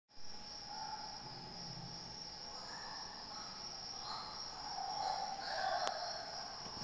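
Steady high-pitched insect trill, of the kind crickets make, with fainter wavering sounds lower down that swell a little near the end.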